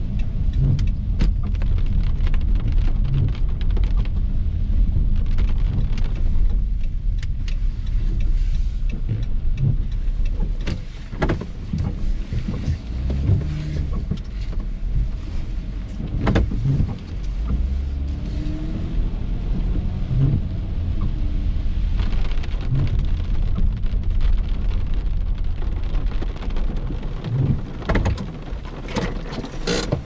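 Inside a moving car in the rain: a steady low engine and road rumble, with rain hitting the windshield and roof and a few scattered knocks.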